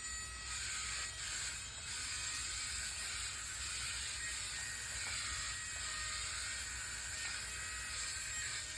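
Wall-climbing RC toy car running: a steady high whir from its small electric motors and suction fan.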